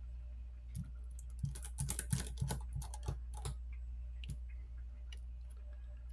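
A quick run of small plastic-and-metal clicks and taps as smartphone parts and small tools are handled during reassembly, bunched in the first half and ending with one more tap, over a steady low hum.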